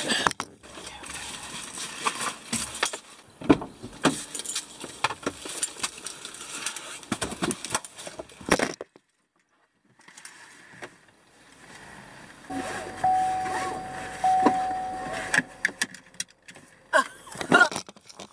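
Camera being handled and set in place inside a car: rustling, knocks and clicks with keys jangling. The sound drops out for about a second midway, and later a steady electronic beep holds for about three seconds.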